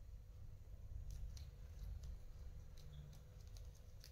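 Guinea pig chewing fresh vegetables and lettuce: faint, crisp crunches at irregular intervals.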